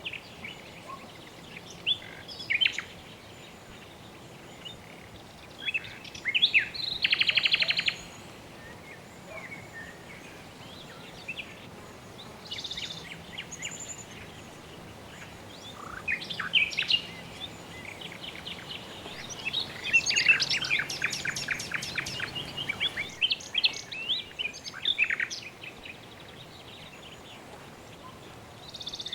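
Birds chirping and calling, with scattered short chirps, a buzzy trill about seven seconds in and a longer run of rapid trilled notes a little past twenty seconds, over a steady faint background hiss.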